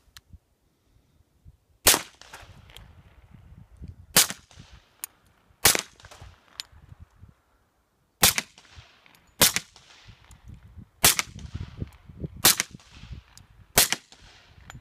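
Eight suppressed .45 ACP pistol shots from an FNX Tactical fitted with an AAC Tyrant suppressor, fired singly at an uneven pace about one to two and a half seconds apart, each followed by a short echoing tail.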